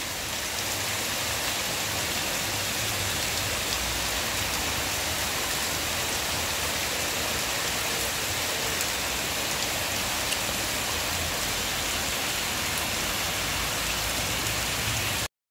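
Steady rain falling on a wet cobbled street, with water running off across it; the sound cuts out briefly near the end.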